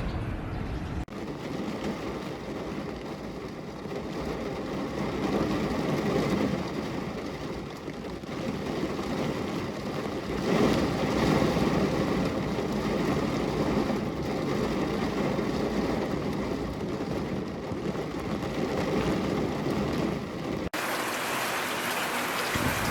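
Heavy rain falling, a dense steady rush that swells and eases. Near the end it cuts abruptly to a brighter, thinner rain recording.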